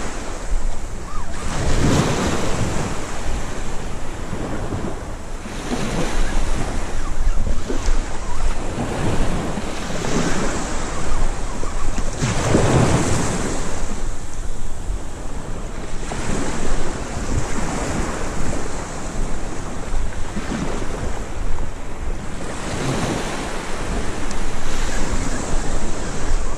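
Waves breaking and washing up the beach, swelling and ebbing every few seconds, with wind buffeting the microphone.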